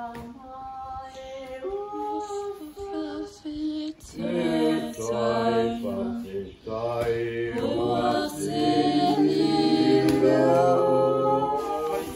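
Several voices singing together unaccompanied, in long held notes and harmony. The singing grows fuller and louder about four seconds in.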